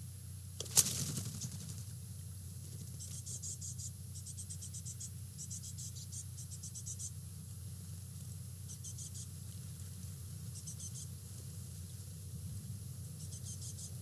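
Insects chirping: short trains of rapid, evenly spaced high-pitched pulses, repeating every second or two from about three seconds in, over a steady low hum. A single sharp click about a second in is the loudest sound.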